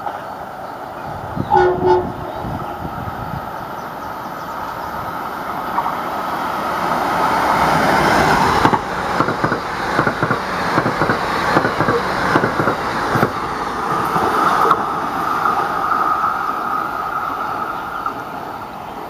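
Metro-North commuter train approaching and passing close by. A short horn blast sounds about two seconds in, then a building rush of wheels on rail peaks as the cars go by with rapid clicking over the rail joints. A steady hum follows near the end as the train pulls away.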